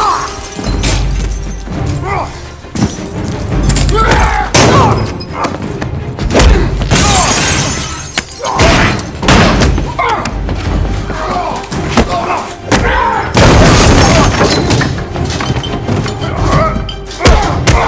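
Film fight sound effects: a string of heavy punch and body-slam thuds, crashes with breaking glass and debris, and men's grunts of effort, over dramatic score music.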